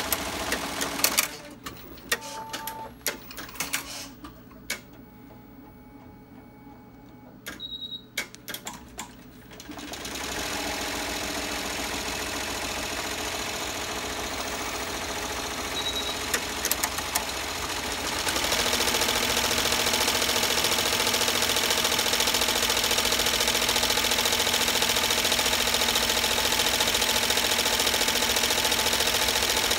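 Commercial embroidery machine stitching, which stops after about a second; scattered clicks and knocks and one short beep follow while it stands still for the applique to be laid on. It then starts stitching again with a steady rapid run that gets louder about eight seconds later and holds.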